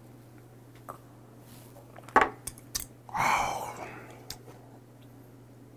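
A small glass set down with a sharp clink, followed by a long breathy exhale after a shot of soju that fades over about a second, over a low steady hum.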